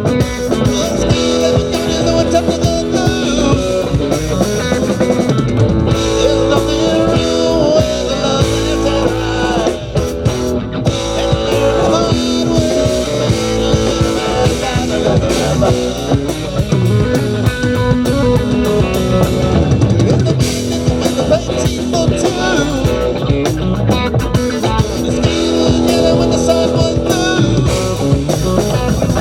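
Live band playing a rock jam, with electric guitar lines over a drum kit and bass, and some singing.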